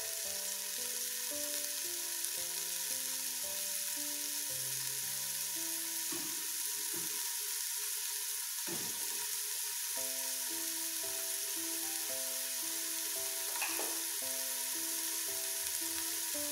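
Chopped onion, bell pepper and garlic frying in olive oil in a pressure cooker, a steady sizzle as the vegetables soften. Soft background music of simple melody notes plays over it.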